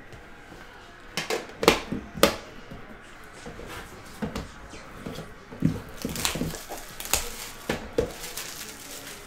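A metal card tin and its lid handled on a table: several sharp clinks and knocks, the loudest two about two seconds in, with rustling of the box's plastic wrap in the second half.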